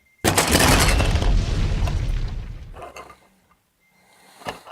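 A sudden loud explosion boom, with a deep rumble that dies away over about two and a half seconds.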